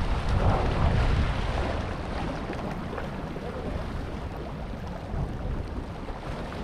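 Small harbour waves washing and splashing over a rock ledge, with wind buffeting the microphone. The wash is loudest in the first second or so, then eases to a steadier, softer surge.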